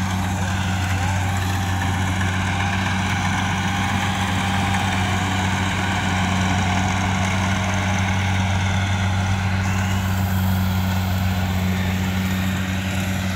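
Kubota DC70 combine harvester working through rice: a steady low diesel engine hum under a wide hiss and rattle of its cutting and threshing machinery, running at an even working speed.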